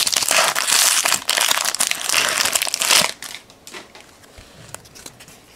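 Foil trading-card pack wrapper crinkling loudly as it is opened, for about three seconds; then it goes quieter, with a few soft clicks as the cards inside are handled.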